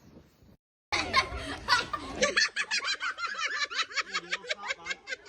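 A person laughing hard in a long run of rapid bursts, about six a second. The sound cuts out briefly near the start, then the laughter builds and keeps going.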